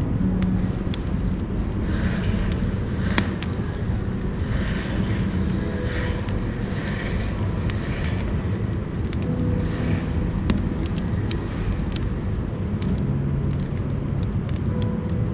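Firewood burning in a wood stove: a steady low roar, scattered with many sharp crackles and pops and repeated swells of hissing.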